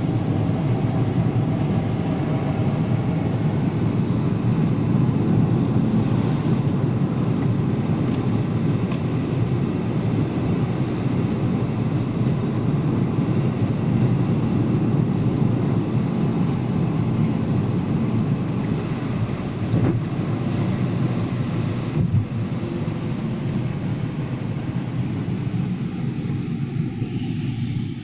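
Steady road and engine rumble heard from inside a moving vehicle driving in wet weather, easing off slightly near the end.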